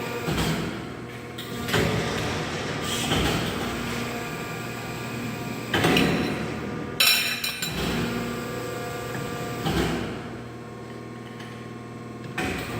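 CNC-60ST bending machine running through a 180° bend in 22 mm stock: a steady machine hum with several heavy clunks. About seven seconds in there is a sharp metallic clack.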